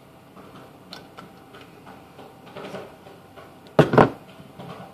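Small clicks and taps of a sauce bottle and glasses being handled on a counter, with two loud knocks in quick succession close to the microphone about four seconds in.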